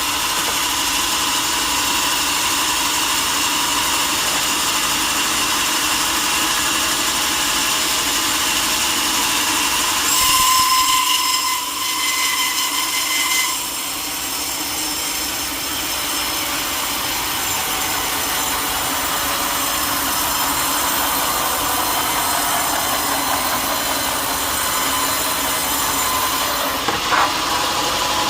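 A sawmill saw running and cutting through teak wood: a steady, loud machine whine with a rasping cutting noise. The sound shifts about ten seconds in, grows louder for a moment, then settles a few seconds later.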